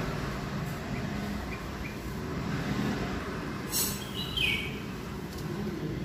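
Red-whiskered bulbul giving a short call about four seconds in that steps down in pitch, with a few faint chips earlier, over a steady low background rumble.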